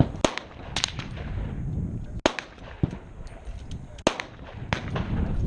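Gunshots at an outdoor shooting range, sharp cracks at irregular intervals, about eight in all, some in quick pairs. The loudest come about two and four seconds in, with fainter shots between them.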